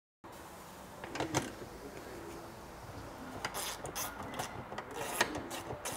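A hand tool working the screws and plastic clips of a car's plastic under-body panel: sharp clicks and scrapes, a couple early and then a quicker irregular run in the second half.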